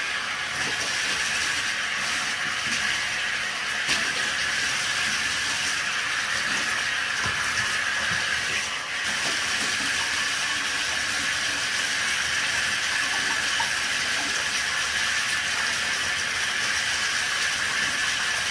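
Water running steadily, rinsing a blower motor part after it was cleaned with bleach shower cleaner, as a constant hiss that dips briefly about nine seconds in.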